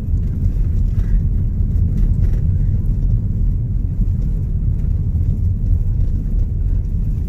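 Car driving along a paved road, heard from inside the cabin: a steady low rumble of engine and road noise.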